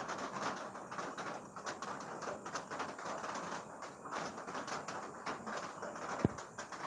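Steady rain with a dense, irregular patter of drops. A single sharp knock sounds about six seconds in, the loudest thing here.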